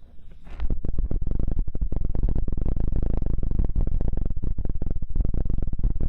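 Ear-cleaning tool scraping and rubbing on a silicone ear right over a binaural microphone: dense, rapid crackling scratches with a heavy low rumble, starting about half a second in.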